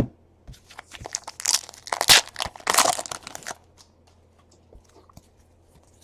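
A trading card pack's plastic wrapper being torn open and crinkled, a dense crackling rustle that dies down to a few faint clicks after about three and a half seconds.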